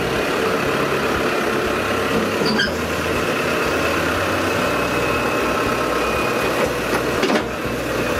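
New Holland TL100 tractor's diesel engine running steadily close by while its front-end loader works, with a single sharp knock about seven seconds in.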